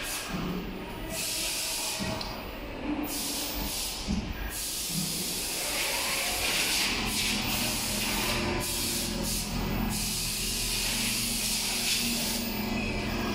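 Large automatic sewing machine running: a steady hiss, broken by short gaps in the first few seconds, with a low steady hum that comes in about halfway through.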